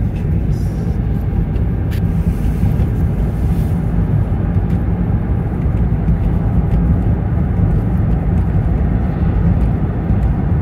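A car's road and engine noise heard from inside the cabin while driving: a steady low rumble.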